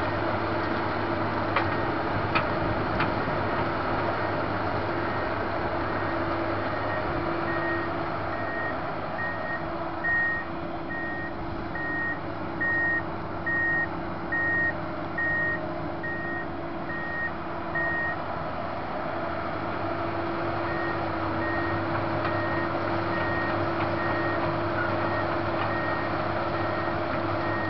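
Komatsu PC200 swamp excavator's diesel engine running steadily, with its travel alarm beeping evenly at a bit over one beep a second. The beeping pauses for a couple of seconds about two thirds of the way through, then resumes.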